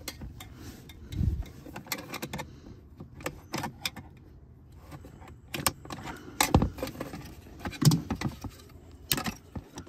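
Wiring-harness connectors being pried loose with a screwdriver and unplugged from a car's air suspension control module, and its metal case being handled: irregular plastic clicks and rattles with a few louder knocks.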